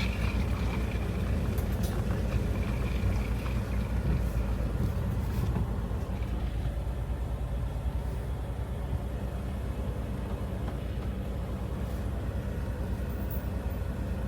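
Motor vehicle driving along a road: a steady low engine and road rumble that eases slightly about halfway through.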